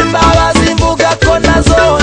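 African pop music with a steady beat.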